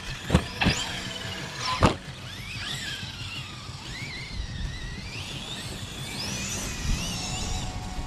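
Electric RC monster truck's motor whining high, rising and falling as it speeds up and slows over the grass. A few sharp knocks come in the first two seconds.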